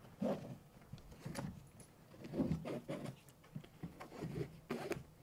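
Grivel G12 New Classic steel crampon being unstrapped from a boot: the nylon binding strap is pulled through its metal rings and buckle, giving irregular light clinks and rustling of webbing.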